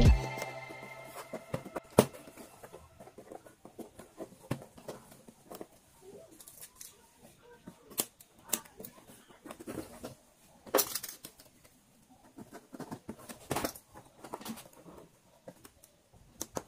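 Stiff plastic strips of a woven plastic bayong bag crinkling and rustling as they are handled, with scattered clicks and snips from scissors trimming the strip ends.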